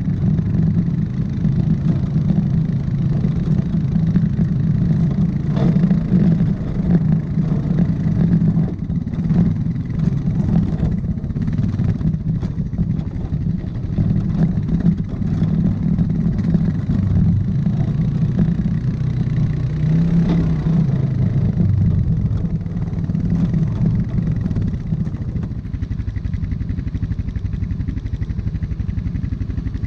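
Honda Foreman ATV's single-cylinder four-stroke engine running under way on a trail, its pitch rising and falling with the throttle. A few knocks and rattles come in the middle, and it settles to a steadier run near the end.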